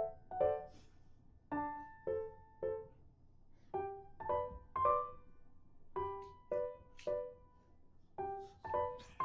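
Background piano music: a gentle melody of single notes and small chords, each struck and left to fade.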